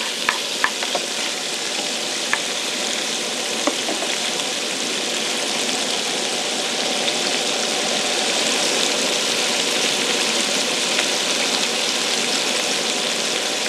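Chunks of fish fillet sizzling in hot oil in a frying pan, a steady frying hiss. A few light taps of a wooden stirring utensil against the pan come in the first few seconds.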